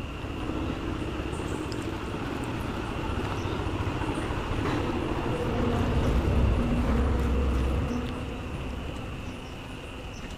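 A low rumble of a passing vehicle swells, is loudest about six to eight seconds in, then fades. Under it runs the steady high chirring of crickets.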